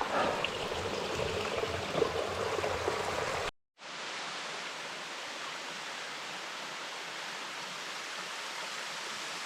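Creek water rushing over rocks, an even hiss with some low rumble. About three and a half seconds in it cuts off abruptly and gives way to the steady, even rush of a small waterfall.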